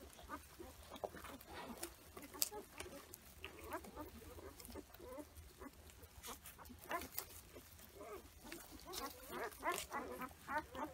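Newborn Komondor puppies squeaking and whimpering faintly as they nurse, with light rustling of straw; the squeaks come thicker near the end.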